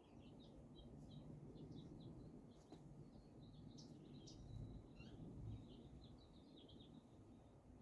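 Near silence, with faint, rapid bird chirping in the background throughout, a couple of chirps a little louder about four seconds in, over a low, soft rustle.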